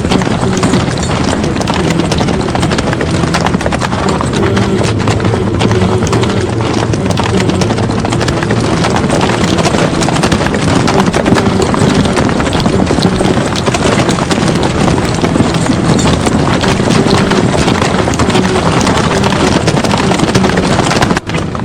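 Many horses galloping together, a dense, continuous clatter of hooves: a cavalry charge battle sound effect.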